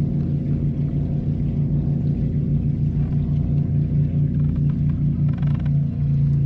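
Boat motor running at idle: a steady low hum that throbs about five times a second, evening out near the end.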